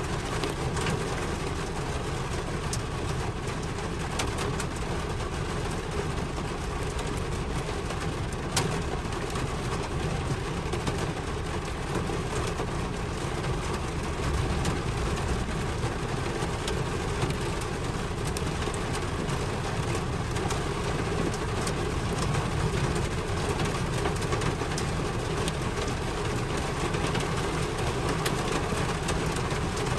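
Steady rain falling, an even hiss dotted with sharp drop ticks; one tick about eight seconds in is louder.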